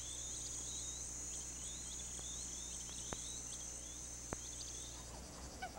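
Insect chorus: a steady high buzz of crickets, with a run of short repeated chirps over it and two faint clicks in the second half.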